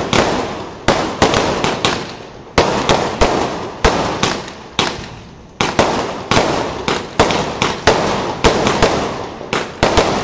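Multi-shot fireworks cake firing air burst shells in quick succession: sharp bangs about two to three a second, each trailing off before the next.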